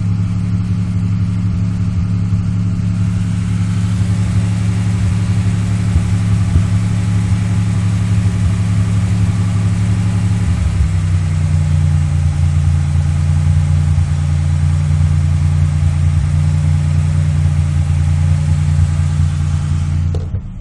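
1997 Chevrolet Malibu engine running steadily at slightly raised revs, its note stepping up a little about halfway through. The owner says the engine has a bad misfire, heard most when the revs are raised.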